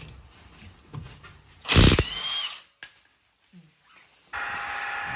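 A short, loud burst from a power tool about two seconds in, then, after a pause, a steady mechanical whine that starts abruptly and holds an even pitch.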